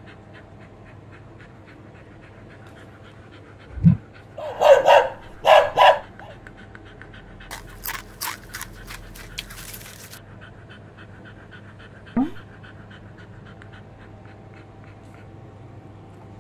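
A dog panting, with two short barks about five seconds in. A run of light clicks follows around eight seconds, and a brief rising whine comes near twelve seconds.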